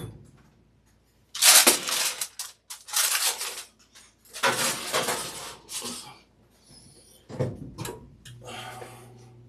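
Aluminium foil crinkling in several bursts as it is pressed and tucked over a roasting pan. A low steady hum starts near the end.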